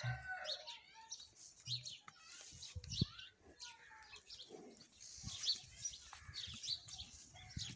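Small birds chirping over and over, with a single dull thump about three seconds in.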